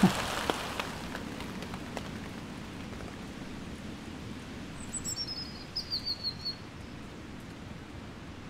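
A songbird sings once, a short phrase of quick, high repeated notes about five seconds in, over a steady faint outdoor hiss.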